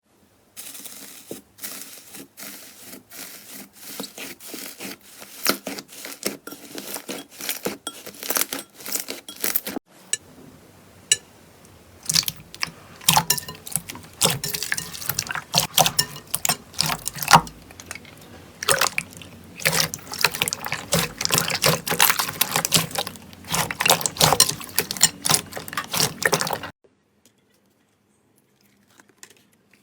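Slime being squished and poked by hand: dense, irregular wet clicking and popping. The texture changes about ten seconds in as a new clip begins, and the sound stops shortly before the end.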